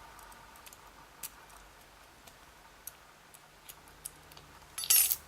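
A few faint, sparse clicks of small lock pins and tools being handled, then a short, louder scraping rustle just before the end.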